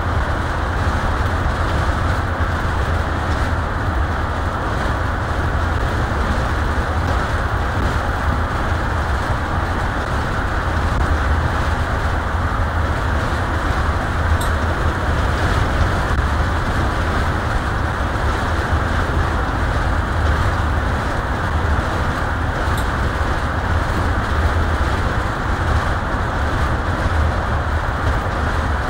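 Steady road and engine noise inside a vehicle's cabin cruising at highway speed: a constant low rumble under an even tyre-on-pavement hiss.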